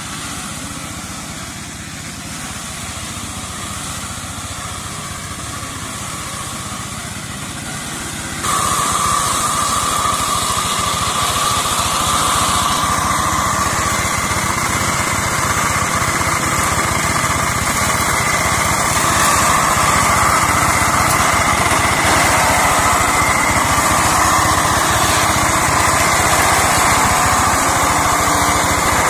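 Engine of a two-wheel hand tractor converted into a brush mower, running steadily under load as it cuts through undergrowth. It becomes abruptly louder about eight seconds in and stays at that level.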